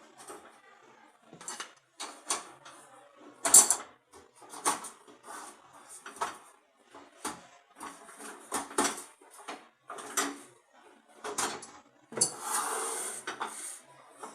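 Metal parts and tools of a gas stove being handled during repair, clinking and knocking irregularly about once a second. About twelve seconds in, there is a longer scraping noise lasting roughly a second.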